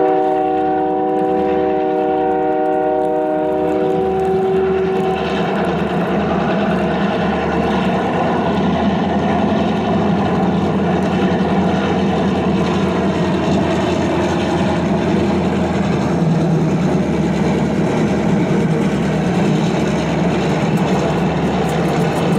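Train horn sounding a chord of several notes for about four seconds, then the steady rumble and rolling noise of a train pushing two coupled railroad snow spreaders past.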